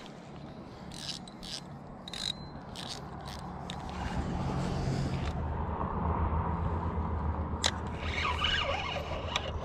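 Irregular sharp clicks for the first half, then a low steady mechanical hum that grows louder from about four seconds in.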